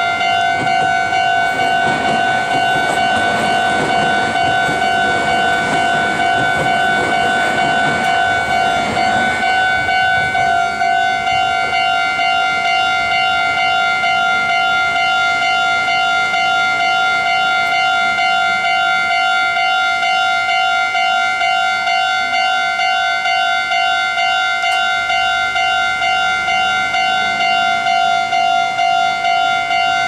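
Japanese level-crossing alarm bell ringing continuously in a fast, even repeating ding. Under it for the first ten seconds or so a passing train's rumble fades away.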